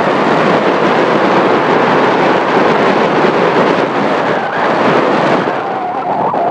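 Loud, steady wind noise buffeting the microphone.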